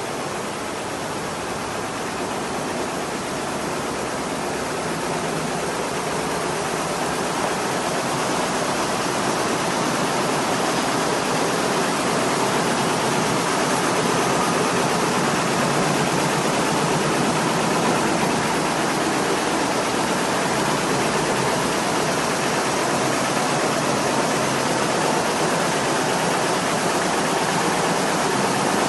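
Steady, even noise of factory production machinery running, growing gradually louder over the first half and then holding.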